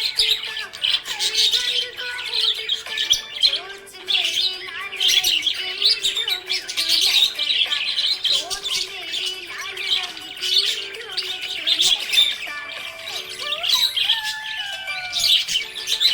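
Budgerigars chirping and warbling without a break: a stream of short high chirps, squawks and gliding calls.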